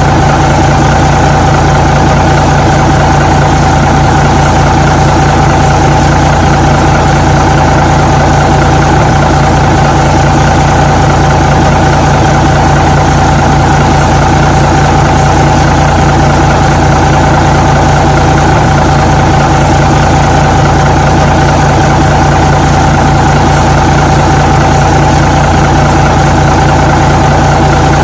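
Truck engine idling steadily, a constant low rumble with a steady hum and no change in speed.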